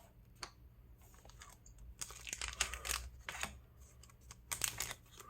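Pokémon trading cards being handled and slid one behind another, making a run of light clicks and paper rustles that come in two spells, about two seconds in and again near the end.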